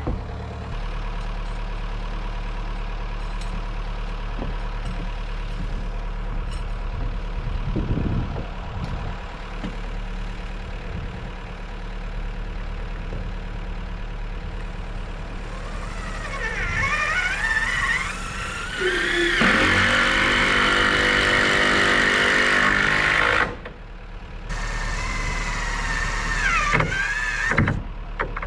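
Excavator's diesel engine running steadily. About two-thirds of the way through, a loud whine rises and falls in pitch as the hydraulics work the boom. The sound cuts out suddenly for a moment near the end, then the engine carries on.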